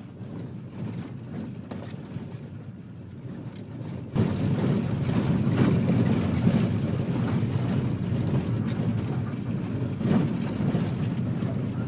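Vehicle driving, its engine and road rumble heard from inside the cabin; the steady low rumble grows louder about four seconds in, with a few faint knocks.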